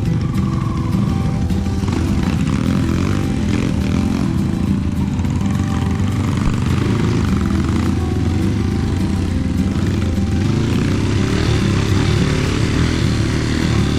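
Trail motorcycle engine running under load, its pitch rising and falling as the throttle is worked over rough ground.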